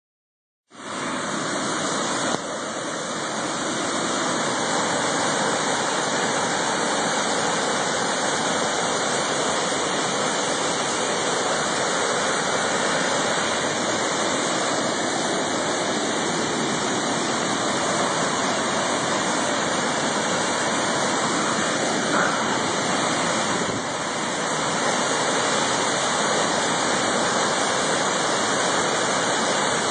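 Waterfall in flood: a steady, loud rush of raging white water pouring over the falls.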